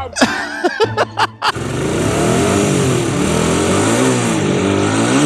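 Motorcycle engine running and being revved up and down twice after it comes on loud about a second and a half in. It has just been switched onto its reserve fuel after running out of gas.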